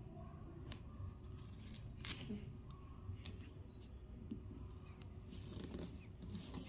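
Small hands handling a wax crayon on a tabletop: a few short, scratchy clicks and rustles, spaced a second or more apart, over a low steady hum.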